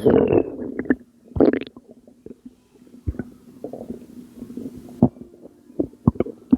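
Gurgling from a person's belly, which the uploader attributes to postpartum water weight: a loud burst of gurgling at the start and another about a second and a half in, then scattered small pops and clicks.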